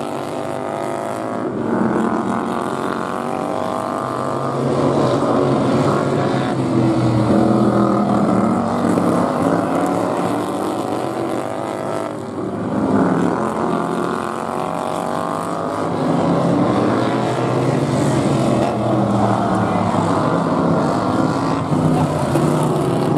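Several racing lawn mower engines revving and easing off as the mowers lap a dirt oval, their pitches overlapping and rising and falling.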